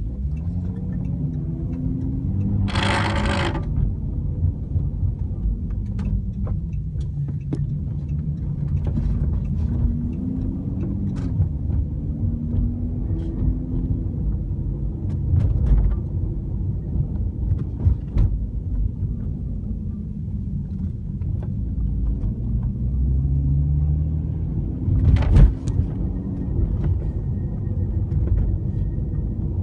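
Cabin of a 2013 Chrysler 300 on the move: steady low road and engine rumble whose pitch rises and falls, with scattered small clicks. About three seconds in, a short, loud burst of rattling from the rear dashboard (rear parcel shelf).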